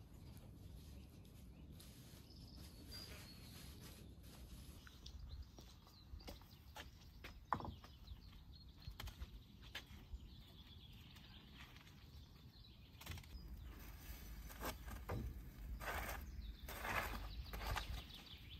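Quiet outdoor background with faint birdsong. Partway in come scattered clicks, scrapes and rustles of foil-wrapped bundles being handled in the ashes of a brick barbecue, growing busier near the end.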